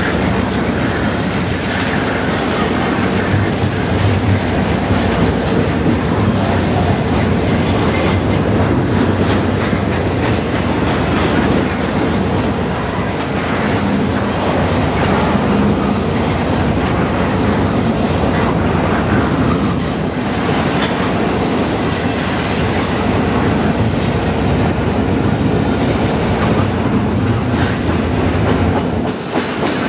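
Double-stack intermodal container train of well cars rolling past close by: a steady, loud rumble of steel wheels on the rails, with a constant clatter of wheel clicks.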